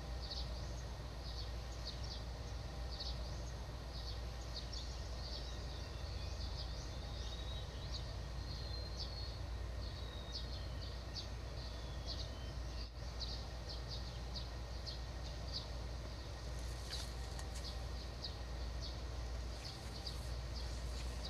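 Outdoor ambience: short high-pitched chirps repeating irregularly, several a second, over a steady low rumble, with a few brief clicks near the end.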